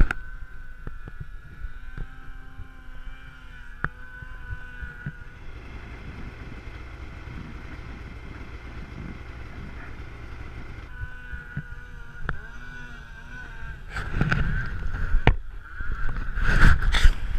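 Snowmobile engine running steadily, then getting louder over the last few seconds, with several sharp knocks and rushes of noise.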